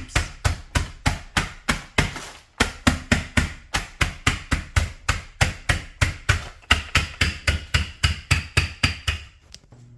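Croutons in a sealed plastic zip-top bag being pounded into breadcrumbs: rapid, even strikes at about four a second, with a short pause about two and a half seconds in, stopping near the end.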